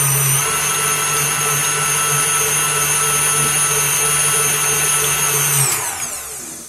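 Electric stand mixer running at a steady speed, its whisk beating egg yolks into a flour-and-milk batter in a steel bowl: a constant motor whine. Near the end it is switched off and the whine falls in pitch as the motor winds down.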